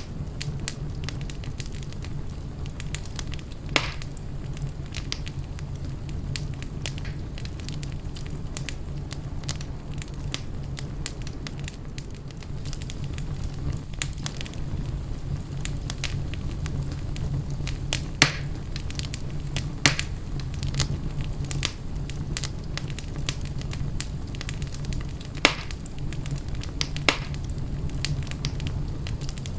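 Wood fire crackling in a fireplace: constant fine crackle over a steady low rumble, with a few sharper, louder pops scattered through.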